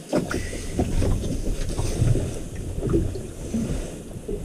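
Wind buffeting the microphone aboard a small fishing boat at sea: a steady low rumble and hiss, with scattered short knocks and rustles from movement on deck.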